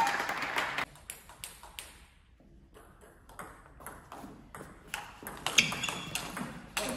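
Table tennis ball ticking back and forth between bats and table in a rally, with a few short squeaks near the end. Music cuts off suddenly about a second in.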